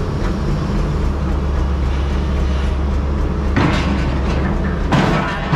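Lonking CDM6225 crawler excavator's diesel engine running steadily as the hydraulics swing and lift the boom and bucket. Two short, louder noises come about three and a half and five seconds in.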